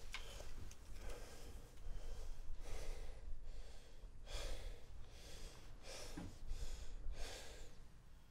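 A man breathing heavily, with about six gasping breaths spaced roughly a second apart, over a low steady rumble.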